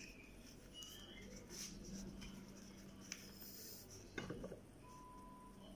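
Faint handling sounds of lumpia being filled and rolled by hand: light taps, rustles of the thin wrappers and a small cluster of clicks about four seconds in, over a low steady hum.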